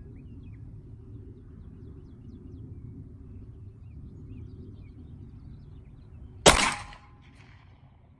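A single 9mm pistol shot from a Glock 43X about six and a half seconds in, sharp and loud with a short trailing echo, over a steady low background rumble.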